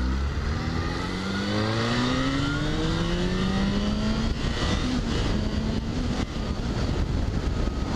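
Motorcycle engine accelerating hard. Its pitch climbs steadily for about four seconds, drops at an upshift, climbs briefly again, then eases off about six seconds in, leaving wind rush on the helmet-mounted microphone.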